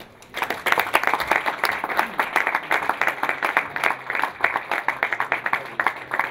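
Audience applauding, many hands clapping; it starts about a third of a second in and keeps up steadily.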